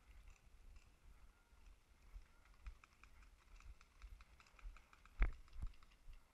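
Scattered faint clicks and pops of paintball markers firing around the field, with a sharper knock about five seconds in and a second, weaker one just after.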